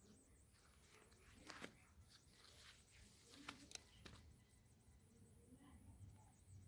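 Near silence, with a few faint clicks and soft rustles about one and a half to four seconds in.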